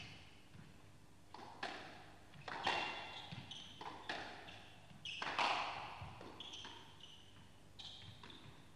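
Squash rally: the ball struck by a racket and hitting the wall, in pairs of sharp knocks about a third of a second apart, every second or so, with short squeaks of shoes on the court floor.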